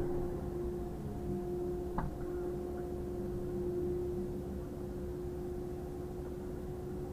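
Vehicle engine and road noise, with a steady hum and a single click about two seconds in.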